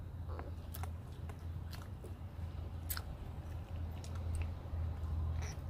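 Wet chewing and smacking of big mouthfuls of bubble gum: scattered short clicks and squelches, over a steady low hum.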